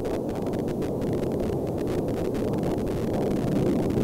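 Steady low rumble of a jet aircraft in flight, an even roar with most of its weight in the low and middle pitches.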